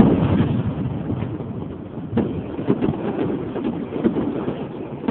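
Fireworks display: a loud bang at the start, then a rumble with scattered crackling pops from bursting shells.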